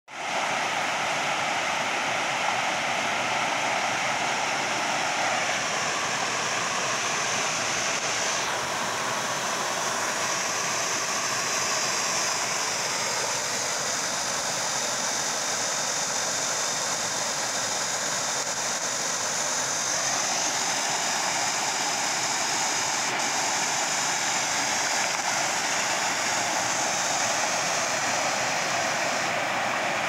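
Mountain stream rushing over rocks and shallow ledges in small rapids: a steady, unbroken rush of water.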